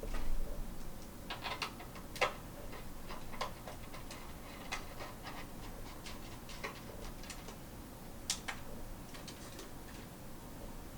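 Irregular light clicks and taps of small plastic parts being handled, the loudest about two seconds in and again past the eight-second mark.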